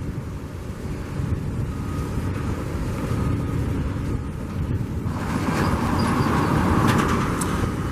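Road traffic noise with wind buffeting the microphone, a steady low rumble. A vehicle hiss swells louder over the last few seconds.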